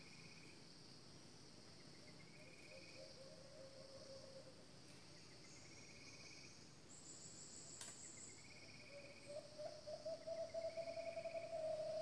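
Steady high insect drone of crickets, with short buzzy trills repeating every two to three seconds. About nine seconds in, a wavering low whistle-like tone starts and grows louder, becoming the loudest sound.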